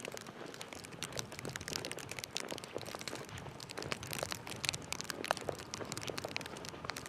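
Dense, irregular crackling and crunching: many small clicks a second with no steady rhythm.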